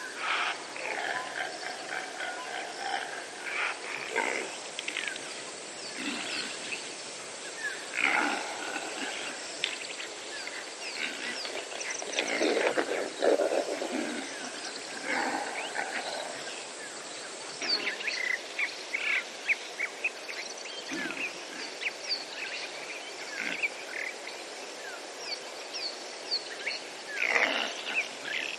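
Wild animals calling outdoors, loudest about twelve to fourteen seconds in, among many short bird chirps. A steady high whine runs underneath and stops about two-thirds of the way through.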